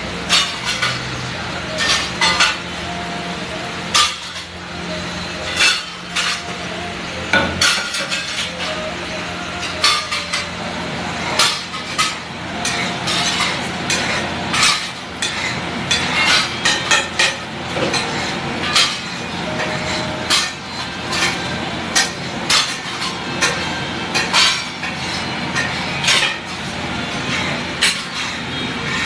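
Metal spatula clanking and scraping on a large flat griddle (tawa) as a big batch of pav bhaji is stirred and spread, with irregular sharp clinks a few times a second over a steady low hum.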